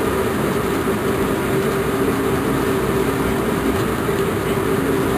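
Fishing boat's engine running steadily, a constant hum.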